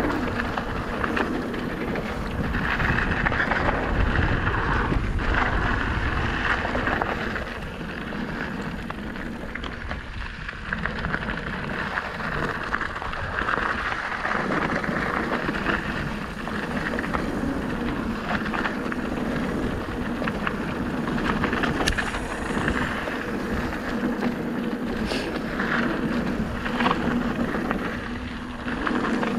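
Electric mountain bike rolling fast down a dirt and gravel trail: wind buffeting the microphone over steady tyre noise on the loose surface, with frequent small clicks and rattles from the bike over bumps.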